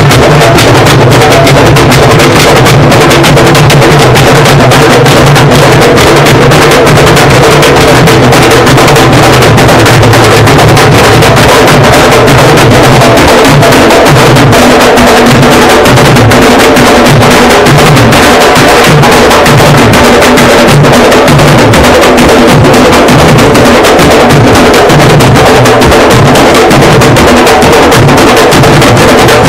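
Candombe drumming: a troupe of tamboril drums played together while marching, a dense interlocking rhythm with deep drum pulses beneath sharper strokes. Very loud and continuous.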